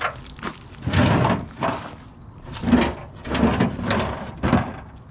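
Wooden beehive box being handled: a handful of irregular knocks and scrapes of wood.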